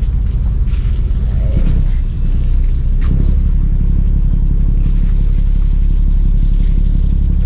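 Fishing trawler's diesel engine running steadily with a low rumble, a few faint knocks over it.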